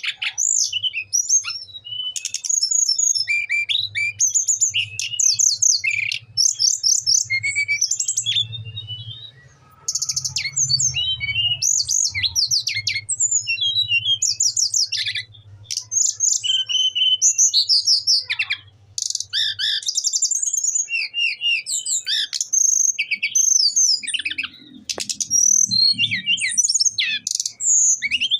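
Brown-chested jungle flycatcher singing almost without a break: rapid, varied high-pitched phrases of sweeping notes, with a few short pauses.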